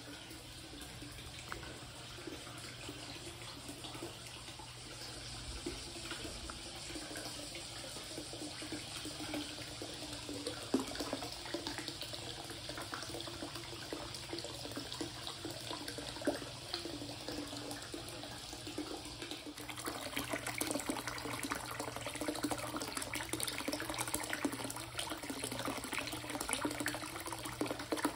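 Hot-spring water pouring steadily from a bamboo spout into a stone bathtub, splashing onto the water's surface. It grows louder about two-thirds of the way through.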